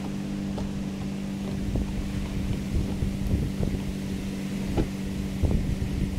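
A steady low mechanical hum, like a motor running, under wind buffeting the microphone, with a few faint clicks.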